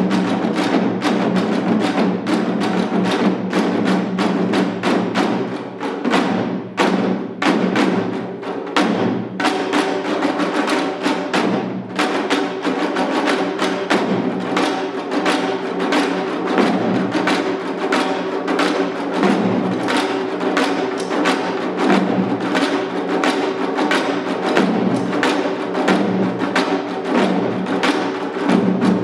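Janggu, the Korean hourglass drum, played in seated seoljanggu style: fast, dense rhythmic strokes that thin to slower, sparser beats about six to nine seconds in, then pick up again.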